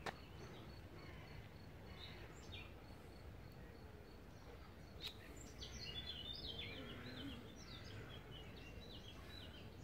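Faint bird song, a run of short chirping notes in the second half, over a low steady background hush, with a faint high pulsing trill in the first couple of seconds and a single click about five seconds in.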